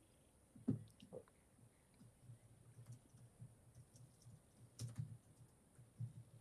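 Faint typing on a computer keyboard: irregular soft taps, with a couple of sharper clicks.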